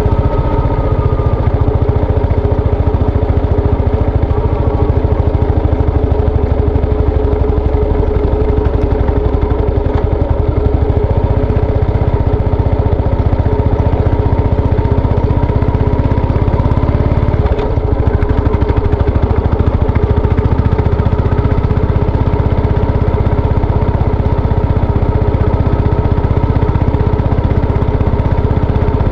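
Yamaha SR400's air-cooled single-cylinder engine running steadily, with a brief dip in level about seventeen seconds in.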